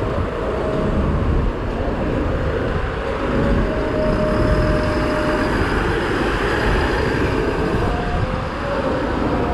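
Road traffic dominated by a green MAN double-decker city bus running close by as it moves off along the road, a steady engine drone with a faint high whine partway through.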